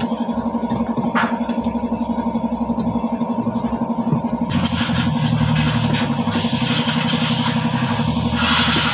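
An engine idling steadily with an even, fast pulse. About halfway through, a broad hiss rises over it.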